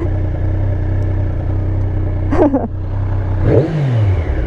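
Triumph Street Triple S 660 three-cylinder engine running steadily under way, heard from the rider's position. The revs drop briefly in a falling pitch near the end.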